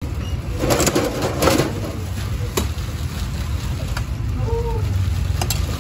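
Street ambience: a steady low rumble of passing traffic, with a burst of clatter and rustling about a second in and a couple of sharp knocks later.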